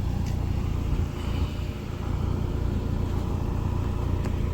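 A car engine idling steadily, a continuous low rumble, with a faint click near the start.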